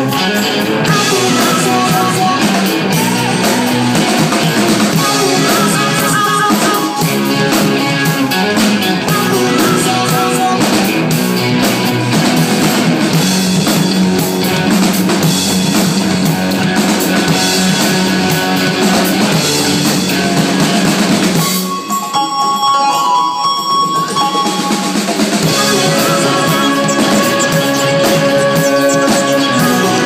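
Live rock band playing on drum kit, electric guitar and keyboards. About two-thirds of the way through, the low end and drums drop away for a few seconds, then the full band comes back in.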